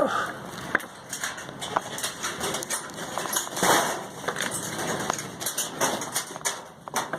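Gusty strong wind with irregular knocks and clatter scattered throughout.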